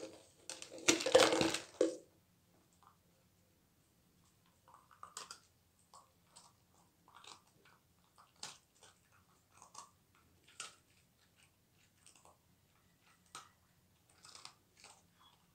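A clear plastic treat tub with dry treats inside rattling and knocking as a miniature schnauzer pushes it over, for about the first two seconds. After that, a dog crunching and chewing dry treats in short, scattered bursts.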